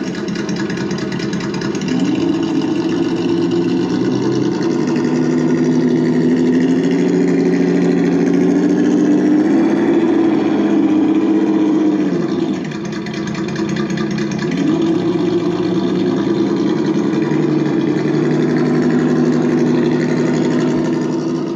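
Reely Double Boost sound simulator playing a simulated engine through the small speaker of an RC crawler, its pitch following the throttle. It climbs about two seconds in and holds, falls back around the middle, then climbs again and eases off near the end.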